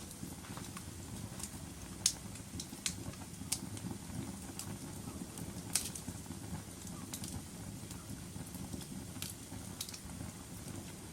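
Wood fire crackling in a fireplace: sharp pops and snaps at irregular intervals over a steady low rumble of the flames. The loudest pops come about two seconds in and near the middle.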